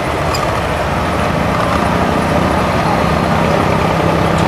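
Abra water taxi's inboard diesel engine running steadily, a low drone that grows slightly stronger about a second and a half in.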